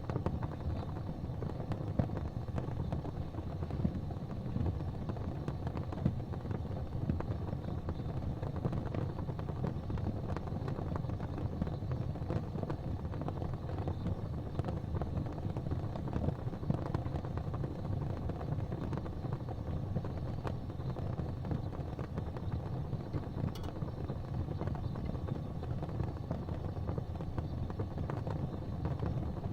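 Gas fireplace flames burning steadily with a low, even rumble and a few faint scattered ticks.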